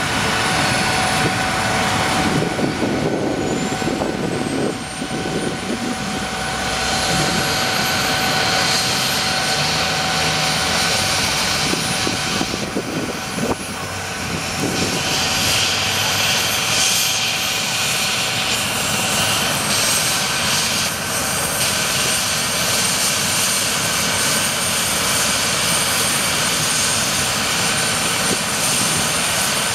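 Air ambulance helicopter running on the ground: a steady turbine whine over a constant engine and rotor noise, with a thin high whine that rises slowly in pitch through the first half.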